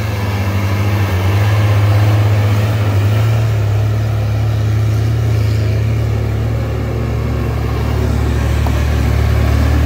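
A motor vehicle's engine running steadily with a low hum, getting a little louder about two seconds in.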